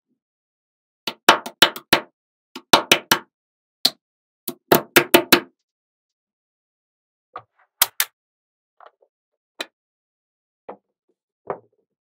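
Small metal magnetic balls clicking and clacking as rows of them snap together into a flat panel. The clicks come in quick clusters through the first half, then as scattered single clicks.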